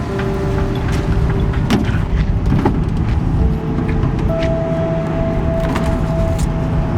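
Steady low engine rumble of a motor vehicle or boat under way, with scattered clicks and rattles. A few thin held tones shift in pitch every second or two over it.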